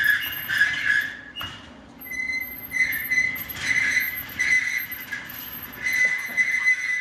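Casters of a steel rolling rack squealing in repeated high-pitched swells as the loaded rack is pushed into a powder-coating oven, over a steady low hum.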